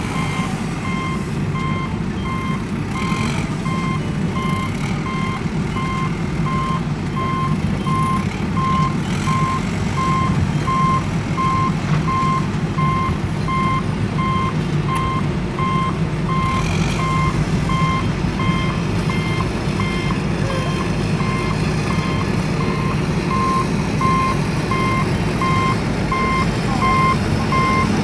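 Reversing-alarm beeping at an even pace of about two beeps a second, over a steady low engine rumble.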